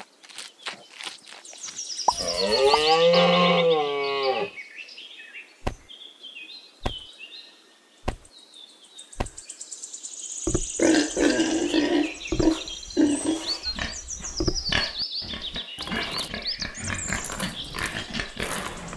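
A cow's long moo about two seconds in, its pitch rising and falling, followed by a few sharp clicks. From about ten seconds in come pig grunts and squeals mixed with small clicking sounds.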